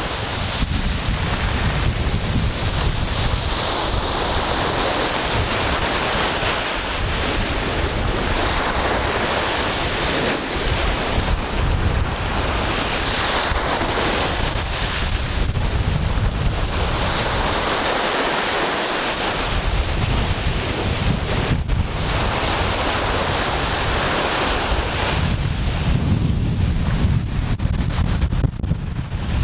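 Ocean waves breaking and washing in surf, swelling and easing every few seconds, with wind rumbling on the microphone.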